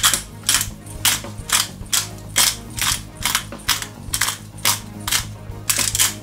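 Hand-twisted pepper grinder grinding black peppercorns: a gritty rasping crunch with each twist, about two twists a second.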